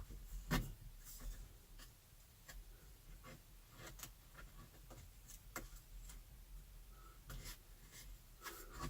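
Faint rubbing and scattered light clicks of hands working at the car's roof trim, pressing a strip of Velcro in under the panoramic roof crossbar's cover panel.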